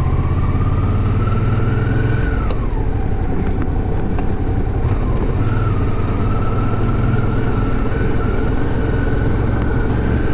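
Suzuki V-Strom 650's V-twin engine running under way. Its pitch climbs for about two seconds, falls away sharply as the throttle is closed, then rises again and holds roughly steady over a heavy low rumble.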